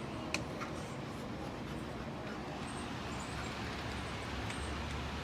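Steady noise of a storm's wind and rain, with a single sharp click about a third of a second in.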